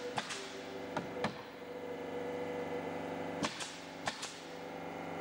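Pneumatic nail gun driving nails into wooden ceiling boards: about seven sharp cracks, some in quick pairs, over a steady motor hum.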